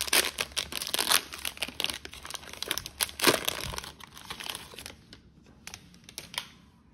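Crinkly plastic wrapper of an NBA Hoops trading-card fat pack being torn open and crumpled by hand, a dense run of sharp crackles loudest about three seconds in. After about five seconds it dies down to a few faint ticks.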